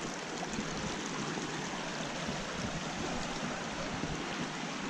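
Shallow creek water running steadily over and between rocks.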